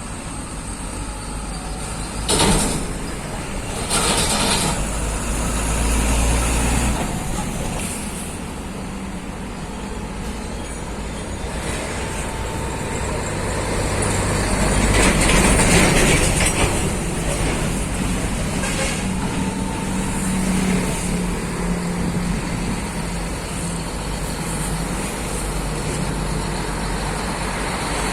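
Heavy trucks on the road, their diesel engines running and passing by. There are short hissing bursts about two and four seconds in, and the loudest pass comes about halfway through.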